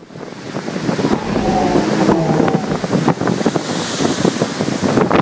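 Gale-force wind buffeting the microphone in rough crackling gusts over the rush of large storm waves breaking on the Lake Michigan shore. The sound swells in over the first second.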